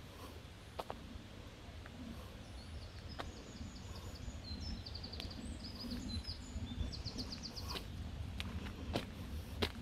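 A small songbird singing a run of high chirping notes ending in a quick trill, over a steady low rumble of outdoor noise, with a few sharp clicks.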